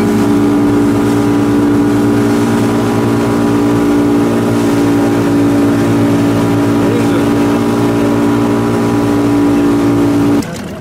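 Honda outboard motor driving a rigid inflatable boat at speed, running loud and steady at an even pitch, then cutting off abruptly near the end.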